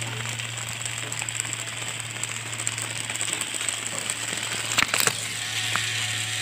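Small battery-powered DC gear motor of a homemade cardboard toy car running with a steady hum and hiss as it drives. A couple of sharp knocks about five seconds in.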